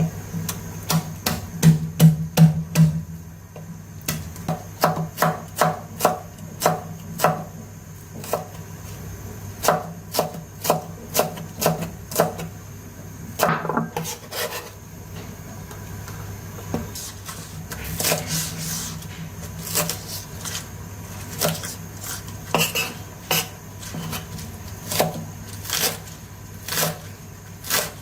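Knife chopping food on a cutting board: runs of quick, even strokes, about three a second, broken by short pauses.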